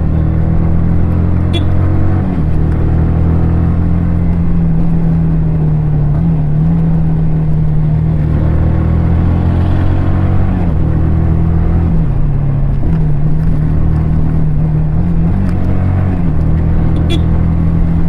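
Yamaha R15 V3 motorcycle's single-cylinder four-stroke engine and exhaust running steadily under way, with small dips and steps in pitch several times as the throttle or gear changes.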